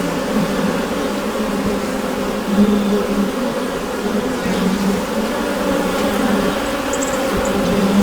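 Honeybees inside a hive, a dense steady hum of many wings droning around a low pitch.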